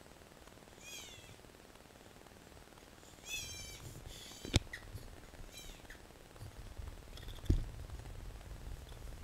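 Newborn baby crying in a few short, thin wails, the longest about three and a half seconds in. Two sharp knocks, about four and a half and seven and a half seconds in, are the loudest sounds.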